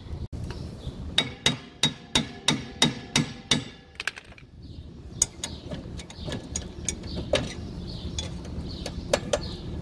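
Hammer blows on a stuck steel brake drum: about eight sharp, ringing strikes in quick succession, roughly three a second, knocking the seized drum loose. After a pause come a few lighter, scattered clicks of metal on metal as the drum is worked free.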